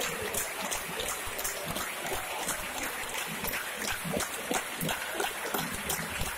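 Football stadium crowd din: a steady hubbub of many voices, with scattered short, sharp sounds through it.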